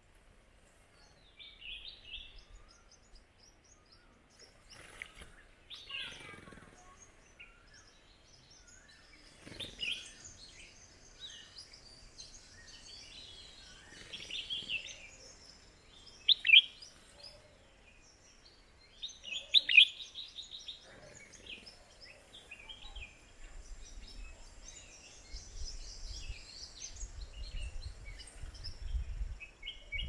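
Small birds chirping and calling in short, scattered notes, with two louder calls in the middle. A low rumble comes in during the last third.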